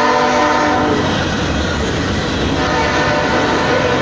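A diesel locomotive horn sounds down the track; its chord ends about a second in and returns fainter near the end. Underneath is the steady rumble and wheel noise of loaded coal hopper cars rolling past close by.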